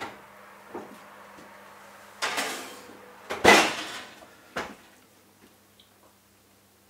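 Baked pasta dish in a glass casserole being put into an electric oven: a short scraping rattle as it slides onto the oven rack, then the oven door shut with a bang and a lighter knock just after.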